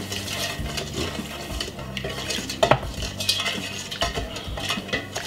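A wooden spoon stirring sugar into hot sorrel drink in a stainless steel bowl, with many small scrapes and clicks against the bowl and one sharper knock about two and a half seconds in.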